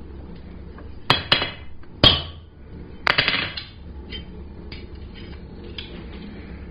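A hammer striking a center punch on a mild-steel bar over the anvil to mark screw-hole positions: three sharp metal strikes in the first two seconds, then a longer ringing metal clatter and some lighter clinks as the tools are handled.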